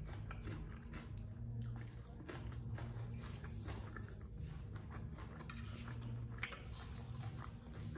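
A person biting and chewing raw vegetables from a spicy papaya salad, with many short, crisp crunching clicks.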